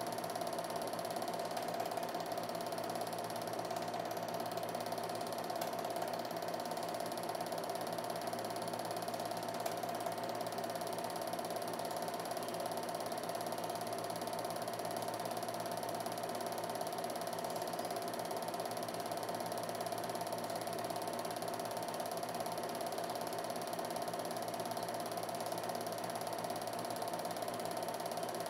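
Film projector running: a steady mechanical whir with a light rattle from the film-transport mechanism, unchanging throughout.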